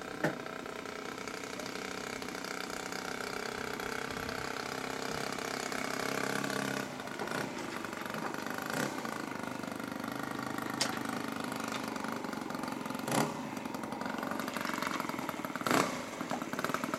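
OS 120 Surpass four-stroke glow engine of a large radio-controlled Gee Bee R2 model plane running steadily at low throttle while taxiing, a little quieter after about seven seconds. A few short, sharp knocks stand out over it.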